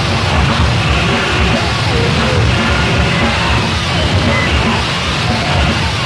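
Loud, heavily distorted noise rock: a dense wall of noise over a pulsing low end, steady in loudness throughout.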